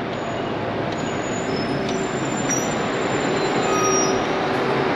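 Prevost charter bus pulling up to the curb, its diesel engine running and growing louder as it draws alongside, with a few faint high-pitched brake squeals.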